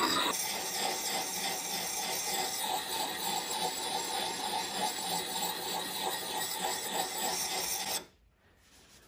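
Oiled bench stone rubbed in repeated strokes along the steel edge of a hatchet head, honing it after filing. The stone-on-steel scraping stops about eight seconds in.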